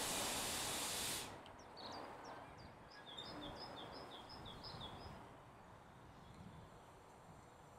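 A loud, even hiss cuts off abruptly about a second in. It is followed by a bird singing a quick run of short, high chirps, two or three a second, over a quiet outdoor background, with a few more chirps near the end.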